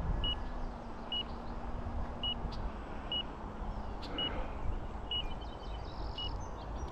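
RC transmitter flight timer beeping: short identical beeps at one pitch, about one a second, counting down to the end of the set flight time, over a steady low rush of background noise.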